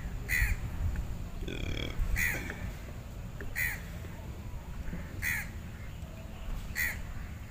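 A crow cawing over and over: five short calls, evenly spaced about a second and a half apart.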